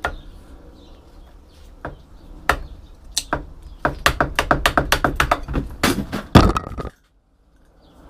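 Metal knocks and clinks on the steel core of a microwave oven transformer as its cracked welded seam is worked apart: a few separate knocks, then a quick run of clicks, then one heavier knock with a short metallic ring near the end before the sound cuts off.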